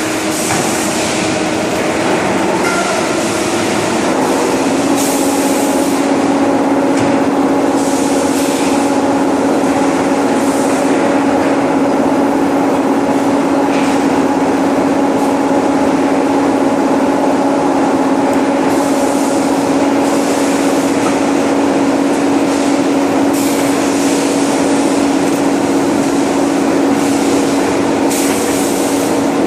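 Rotary furnace's flameless burner combustion system running: a loud, steady roar with a constant hum, and brief surges of high hiss now and then.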